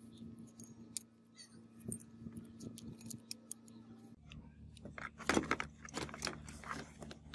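Small rusty metal grinder parts clinking and jangling as they are handled, in scattered sharp clicks with a louder flurry of clinks about five seconds in.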